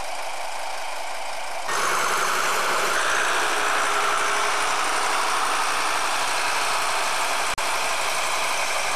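Small narrow-gauge diesel locomotive's engine idling steadily. It gets louder about two seconds in, close beside the locomotive, and cuts out for an instant near the end.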